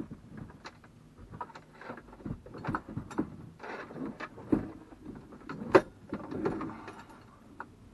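Irregular clicks, knocks and rustling as a CB radio and its mounting bracket are handled and fitted against the overhead console in a truck cab; the sharpest knock comes near the six-second mark.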